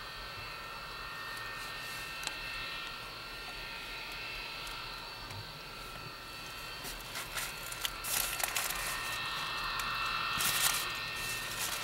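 Jet engine of a CSX rail jet snowblower running with a steady, high-pitched turbine whine of several held tones. Scattered clicks and crackles grow louder over the last few seconds.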